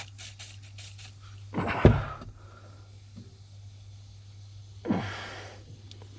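Knocks and scrapes from someone moving about and handling things: a quick run of clicks, a loud knock about two seconds in, and a brushing scrape near five seconds, over a steady low hum.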